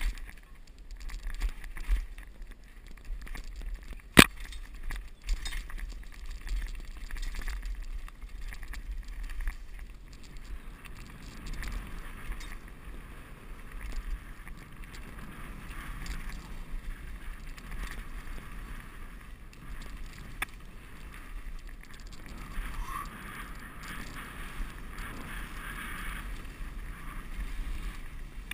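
A mountain bike riding down a dirt forest trail: tyres running over dirt and stones and the bike rattling, with low rumble on the action camera's microphone. A sharp knock about four seconds in, and the rattle gets busier from the middle on.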